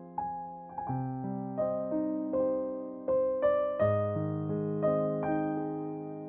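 Background piano music: a gentle melody of single struck notes, each fading away, over held lower notes.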